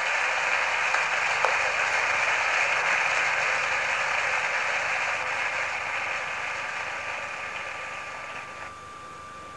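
A steady mechanical noise without pitch that fades gradually and drops away about nine seconds in, leaving a faint steady tone near the end.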